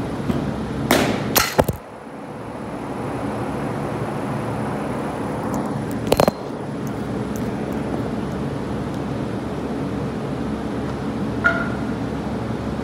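Steady mechanical hum in an indoor batting cage, with sharp knocks of baseball practice: two about a second in and another pair about six seconds in.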